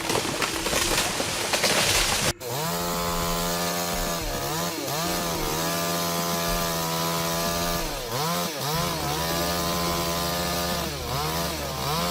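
Chainsaw running at high revs while cutting, its engine note dipping briefly several times as the chain loads in the wood. It is preceded by about two seconds of rushing noise that cuts off suddenly.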